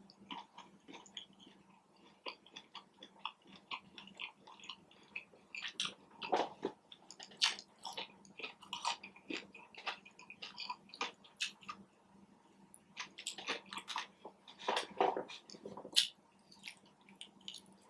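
Close-miked chewing of food: wet mouth clicks and smacks at an irregular pace, a few louder than the rest.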